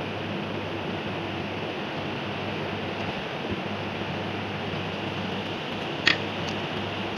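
Steady background hiss and low hum, broken about six seconds in by one sharp metallic click and a faint tick just after, from hand work with a screwdriver inside a vacuum circuit breaker's mechanism.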